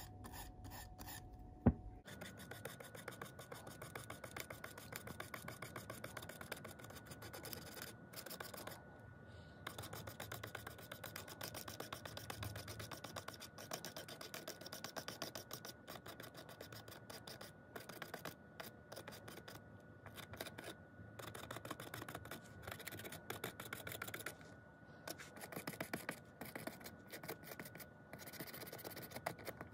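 Fibre pen scrubbing over the painted plastic body of an N gauge brake van: a long run of quick, faint, scratchy strokes. Its bristles are brushing off the fresh black overspray for weathering, leaving paint in the recesses.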